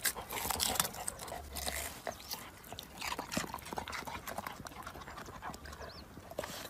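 Dog digging and nosing in loose soil among leafy plants: a busy run of irregular scratching, crunching and rustling that is thickest in the first second and thins out later.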